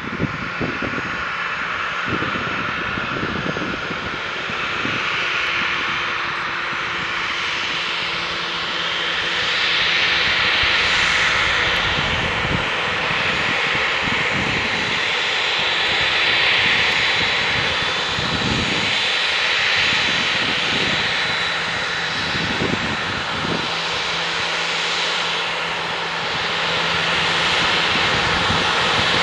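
Boeing 737-800's CFM56-7B jet engines running at low taxi thrust as the airliner turns onto the runway and taxis past, a steady hiss and whine that swells and fades every few seconds. The sound grows a little louder near the end.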